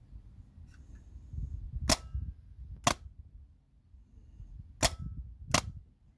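VW T4 starter solenoid clicking four times without the starter cranking the engine, in two pairs about a second apart, over a low rumble. This is the sign of the starter pinion not engaging the flywheel, which the owner puts down to a worn starter bearing allowing too much movement.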